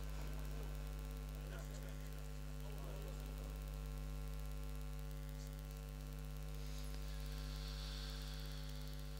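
Steady low electrical mains hum from the microphone and sound system, with a ladder of steady overtones above it.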